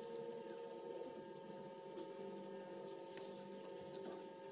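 A steady background hum made of several held tones, with a few faint light clicks as small screws and parts are handled on the repair mat.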